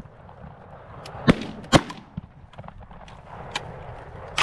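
Shotgun blasts from a goose-hunting volley: two loud shots about a second in, half a second apart, a fainter one just after, and another loud shot at the very end.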